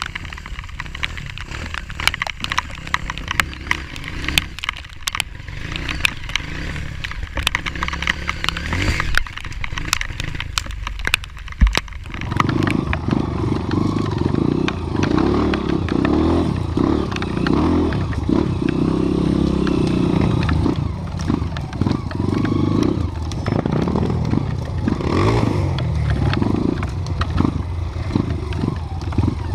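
Off-road trail motorcycle: clattering and scraping at first, then the engine comes up loud about twelve seconds in and keeps running with its revs rising and falling.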